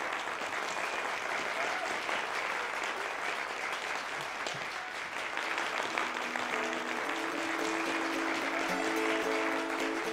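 Audience applauding. About six and a half seconds in, instrumental music with steady held notes starts over the applause.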